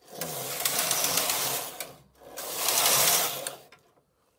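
Silver Reed knitting machine's LC2 lace carriage running across the needle bed on two passes with a short pause between them: a rattling slide over the needles as it makes the lace transfers, with no yarn being knitted.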